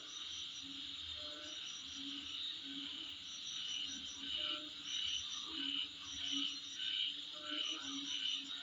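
Insect chorus: a steady high trill, with groups of short repeated chirps above it. Short low calls recur every second or so beneath it.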